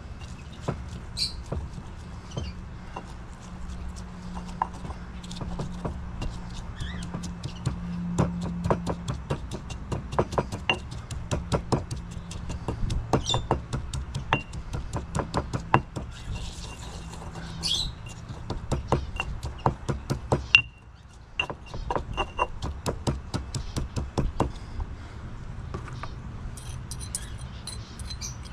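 Runs of quick sharp knocks, about three to four a second, with short pauses between runs, over a low steady hum that fades out partway through.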